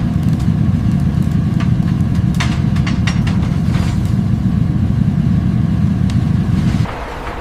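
Heavy factory machinery running with a steady low rumble, with scattered metallic clanks and knocks over it. The rumble cuts off suddenly near the end.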